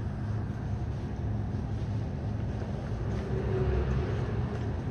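City bus engine idling, a steady low hum heard from inside the cabin at the front, with a faint higher whine coming in about three seconds in and fading before the end.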